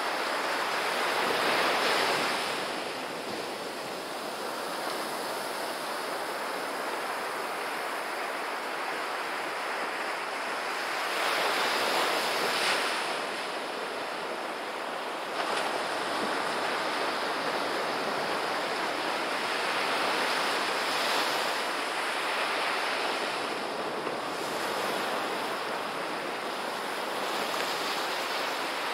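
Ocean surf breaking and washing up a sandy beach: a steady wash of foam that swells with each incoming wave, roughly every nine to ten seconds, loudest about twelve seconds in.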